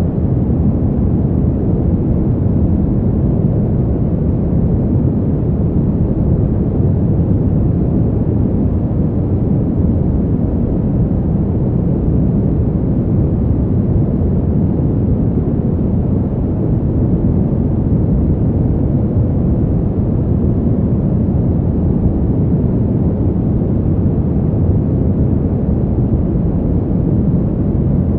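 Brown noise: a steady, loud, deep rushing hiss, heaviest in the low end and dull in the highs, with no change or events.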